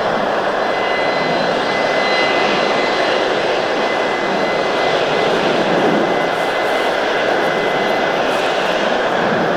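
Jet aircraft's turbofan engines running steadily: a constant rushing noise with a high, steady whine.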